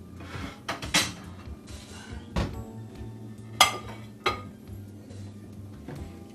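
A serving spoon knocking and scraping against a pot and plate while food is served: about five sharp clinks, the loudest about three and a half seconds in, ringing briefly. Soft background music plays underneath.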